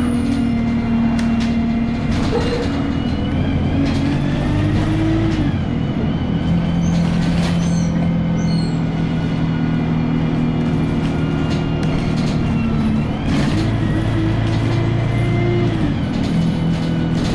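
A vehicle running steadily: a low rumble with droning tones that step up and down in pitch several times, and a few short clicks.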